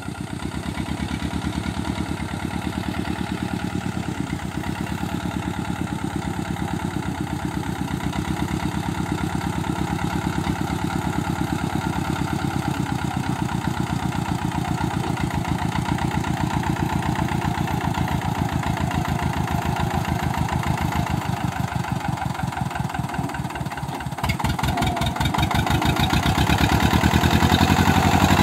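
Eicher tractor's diesel engine running under load as it pulls a trolley heaped with soil, with a fast, even beat of firing pulses. About 24 seconds in it gets louder and keeps rising as the tractor comes close.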